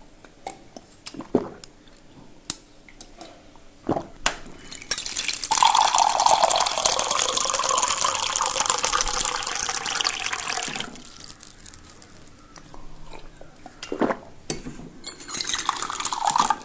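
Water sounds: a few scattered clicks and drips, then about six seconds of loud rushing, pouring water whose pitch slides downward. Two more clicks follow, and a shorter rush of water comes near the end.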